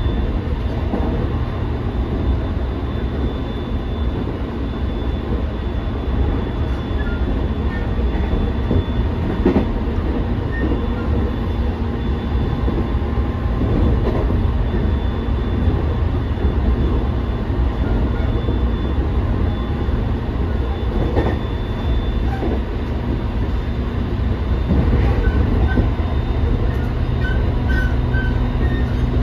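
Running noise inside a passenger car of a JR East E217 series commuter train at speed: a steady rumble of wheels on rail with a faint whine, and now and then a click of the wheels over a rail joint.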